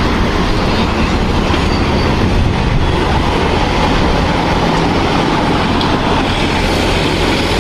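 Loud, steady rumbling and rattling vehicle noise, like a train or heavy vehicle running, dubbed in as a sound effect; it starts and cuts off abruptly.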